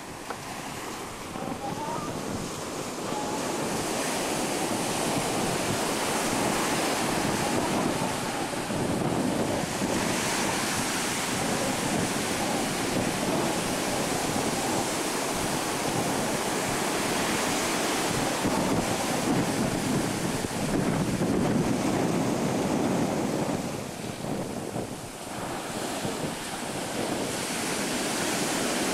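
Ocean surf breaking and washing up a beach, swelling and easing, with wind on the microphone; a brief lull comes a few seconds before the end.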